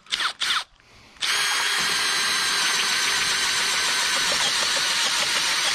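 Cordless drill boring a 3-inch hole into a tree trunk with a large wood-cutter bit. Two brief bursts come first, then from about a second in the drill runs steadily under load with a whine as the cutter chews into the wood.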